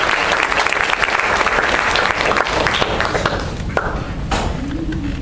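Audience applauding at the end of a musical number; the clapping is dense at first and dies down about three seconds in.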